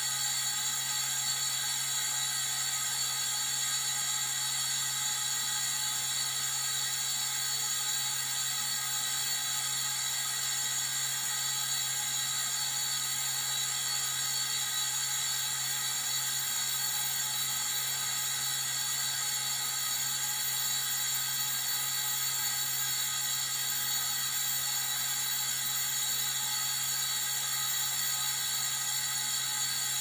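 Nitrogen tank rushing: a steady hissing rush, strongest in the high range, with a low hum beneath it.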